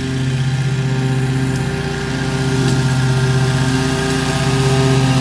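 Wright 36-inch stand-on mower's engine running steadily at cutting speed while mowing tall wet grass, getting louder as the mower comes closer.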